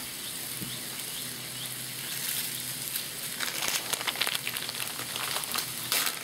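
Sliced chicken and buttered buns sizzling on a Blackstone flat-top griddle: a steady frying hiss, with sharper crackling from about three and a half seconds in.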